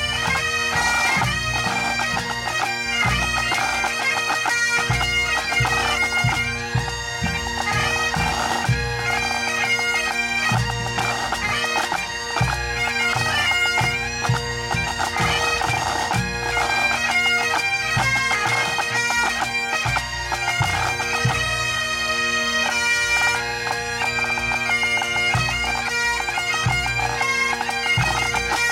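Pipe band of Great Highland bagpipes playing a medley: a fast, ornamented chanter melody over steady, continuous drones, with snare and bass drums beating underneath.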